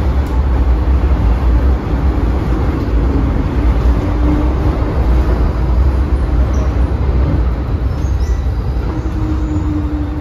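Hong Kong MTR M-train metro car running through a tunnel, heard from inside the car: a loud, heavy rumble of wheels on rail and running gear, with a droning motor whine that comes in around four seconds in and again near the end, falling slightly in pitch. The motor whine is the 'ghost howl' this car (B460) has had since its overhaul.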